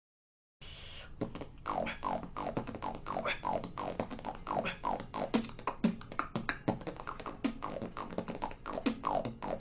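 Quiet beatboxing: a rapid run of short mouth sounds, several a second, each a quick drop in pitch, starting about half a second in.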